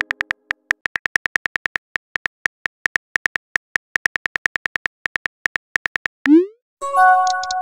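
Phone keyboard typing clicks, quick and even at about six a second, as a text message is typed. Near the end the clicks stop for a short rising swoosh as the message is sent, then a brief chime of several notes, and the tapping starts again.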